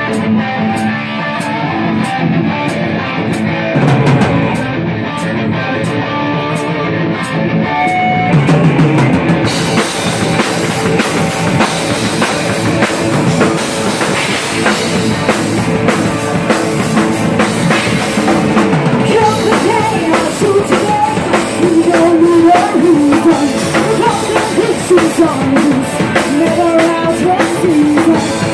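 Live rock band playing: electric guitars and bass over a drum kit, with a light regular cymbal tick at first and the full drum kit and cymbals coming in about nine seconds in. A woman's lead vocal comes in about two-thirds of the way through.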